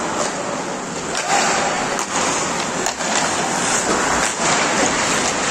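Ice hockey play: skate blades scraping the ice, with a few sharp clicks of sticks and puck over the rink noise.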